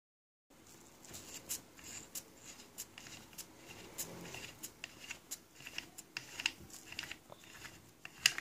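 Clear plastic wrapping crinkling and crackling as hands handle a carburetor packed in it: many short crackles and small clicks starting about half a second in, with a sharper click near the end.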